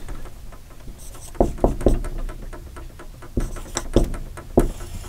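Dry-erase marker writing on a whiteboard: irregular taps as the tip meets the board and short scratchy strokes between them.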